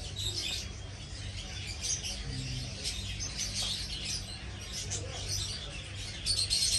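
Many small birds chirping busily and overlapping, over a steady low hum.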